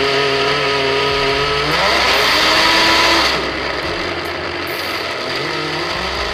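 Electric grinder's motor running as it grinds walnut pieces. Its whine rises in pitch about two seconds in, runs loudest for about a second, then eases off to a lower, steady run.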